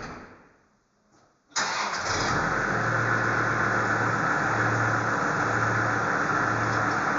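A sudden knock that dies away within a second, then about one and a half seconds in a motor starts abruptly and runs steadily and loudly, with a slow low pulse about once a second.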